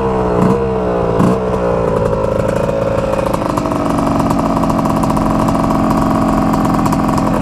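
Yamaha Tri-Z 250 three-wheeler's two-stroke engine revved in a few short blips during the first second and a half, then settling into a steady idle.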